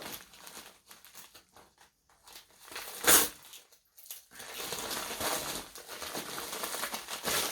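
Plastic parcel packaging being handled and opened, crinkling and rustling. There is one short, sharp, loud noise about three seconds in, then steadier rustling over the last few seconds.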